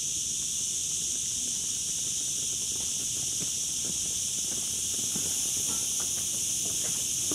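Steady high-pitched chorus of cicadas, with light footsteps on stone paving from about three seconds in.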